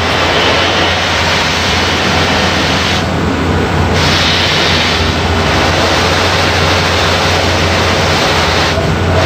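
Stahl Maxi robotic buffing machine running, its cloth buffing wheel spinning against a femoral knee implant held by the robot arm: a loud, steady rushing hiss over a low motor hum. The hiss thins briefly about three seconds in and again near the end.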